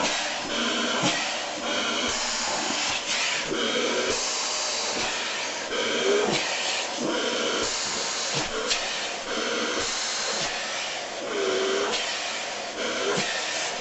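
Dyson vacuum cleaner running, its hose nozzle drawn over a long-haired cat's fur. The suction hiss shifts in tone every second or so as the nozzle is pressed into the fur and lifted off it.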